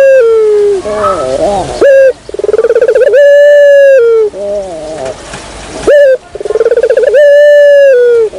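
Puter dove (Barbary/ringneck dove) cooing loudly as a lure call: a short rising note, a rolling trill, then a long held coo that falls away. The phrase repeats twice, about four seconds apart.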